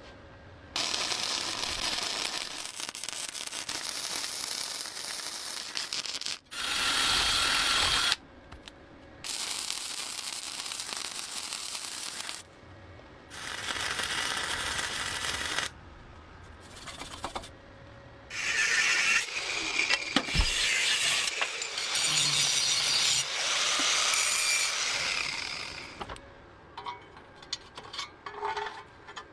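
A workshop tool running in about five bursts of a few seconds each, switching on and off abruptly with a steady hiss, with rubbing and scraping between bursts. Scattered small clicks and taps near the end.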